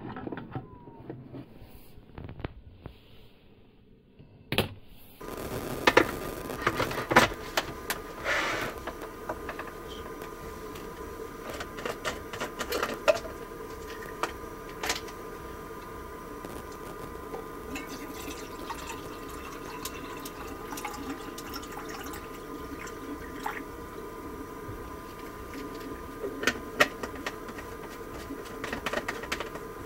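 A plastic water bottle being handled and water poured from it, with scattered clicks and knocks of the bottle and its lid against a steady hum.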